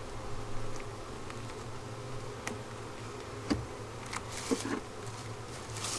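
Honeybees buzzing steadily around an open hive, with a few light taps, the loudest about three and a half and four and a half seconds in.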